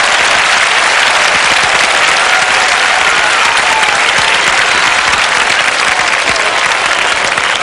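A large crowd applauding, with dense, even clapping that holds steady and eases slightly near the end.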